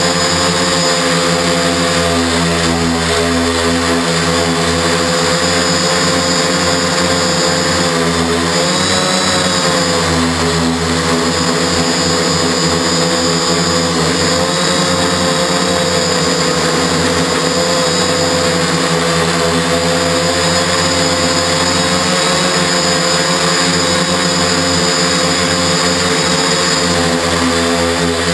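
Octocopter's eight electric motors and propellers whining steadily, heard up close from on board. The pitch dips briefly about eight seconds in and shifts again near the end.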